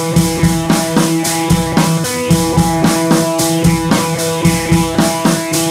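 Background music with a steady drum-kit beat over sustained pitched instruments.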